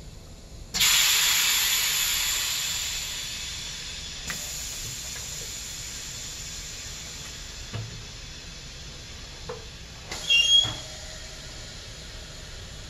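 A sudden loud burst of compressed-air hiss about a second in from the Morgan Press injection molder's pneumatic injection system, run at about 60 to 65 psi, fading away over the next few seconds. A few light clicks follow, then near the end a brief metallic clatter with a short squeak as the molder's mold clamp is worked.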